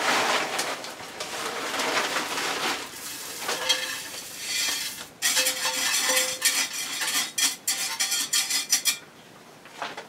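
Coarse granular bonsai soil of akadama and pumice rattling and clinking as it is handled with a metal scoop at the pot, in a rustling hiss and then quick runs of gritty clicks.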